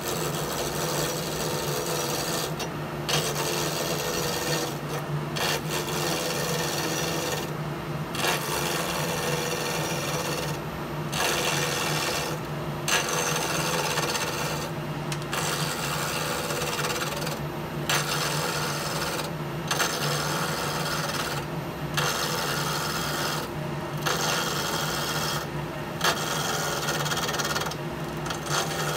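Turncrafter mini wood lathe running steadily while a hand-held turning tool cuts a spinning wooden handle blank. The cutting noise breaks off briefly about every two seconds as the tool comes off the wood, and the motor hum carries on underneath.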